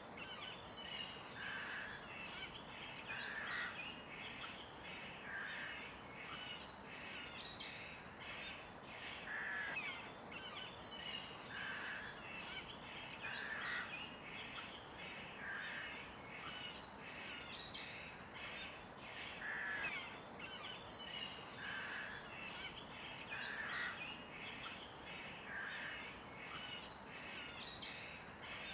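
Many birds chirping and calling together: quick high chirps and sweeping whistles, with a harsher, lower call repeating about every two seconds over a faint steady hiss.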